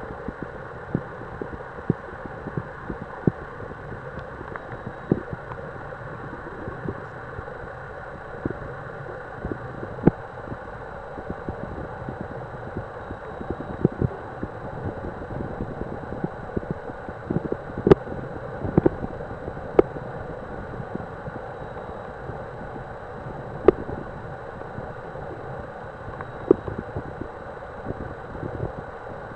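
Underwater ambience picked up by a submerged camera: a steady muffled hiss with irregular sharp clicks and knocks throughout, a few of them much louder than the rest.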